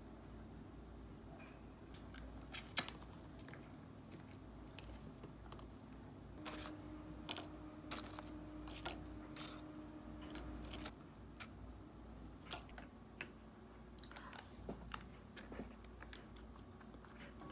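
Faint scattered clicks, taps and light rustles of fruit and wrapped cookies being handled and set down on a glass dessert cup and a ceramic plate, with one sharper tick about three seconds in.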